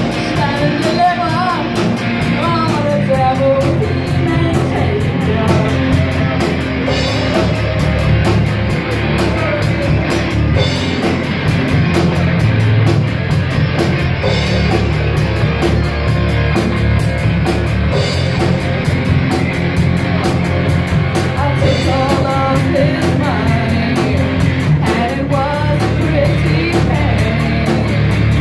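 Live rock band playing: a woman singing over electric guitars, bass guitar and drum kit, with a steady stream of cymbal strokes driving the beat.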